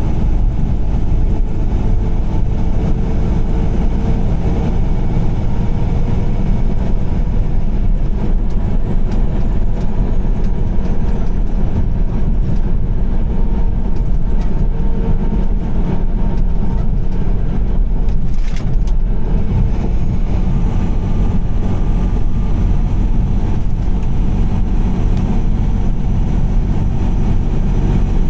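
A car driving at highway speed: a steady, low rumble of road and engine noise. A brief higher hiss comes about two-thirds of the way through.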